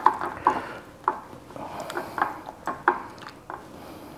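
Chicken breast being worked by hand in a small glass bowl of beaten egg wash: a run of light knocks and clinks against the glass, about two a second.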